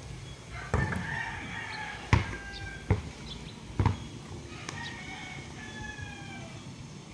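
A rooster crowing twice, each crow a long call that falls in pitch at the end, over four sharp thuds of a basketball, the loudest about two seconds in.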